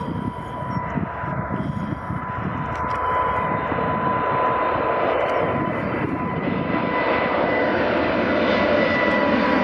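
Boeing 777-300ER's twin GE90-115B turbofans at takeoff thrust as the jet lifts off and climbs out: a full jet roar growing steadily louder as it comes closer, with a steady high whine running through it.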